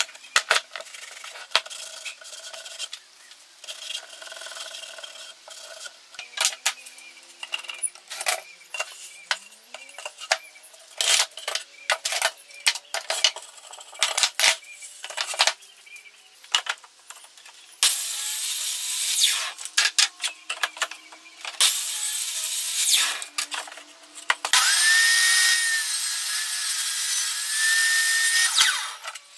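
Woodworking sounds: a long run of sharp clicks and knocks as bar clamps are set and tightened on pallet boards. From about the middle on, a bench table saw runs loudly in three spells, its motor whine climbing quickly in the last and longest one and then holding steady.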